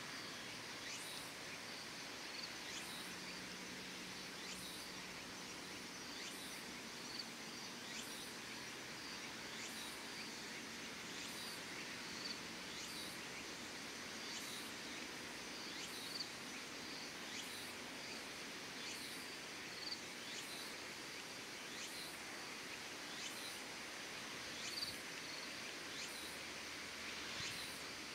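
Outdoor evening ambience: a steady hiss with a short, high chirp repeating about once a second, typical of an insect calling.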